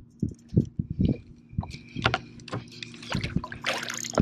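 Water splashing as a hooked lake trout thrashes at the surface and is scooped into a landing net beside a boat, with a louder splash near the end. Irregular knocks and thumps run through it, several a second.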